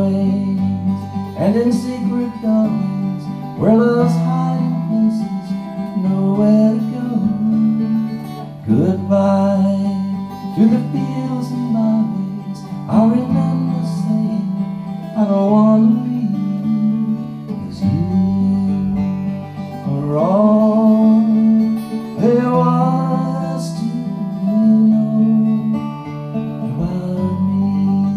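Ovation 12-string acoustic guitar strummed, its chords changing every couple of seconds.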